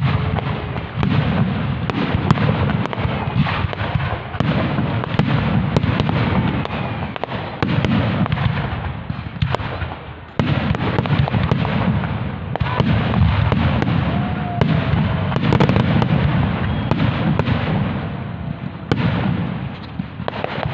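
Fireworks display: a dense, continuous run of overlapping shell bursts and crackling with a heavy low rumble. It eases briefly about ten seconds in and again near the end.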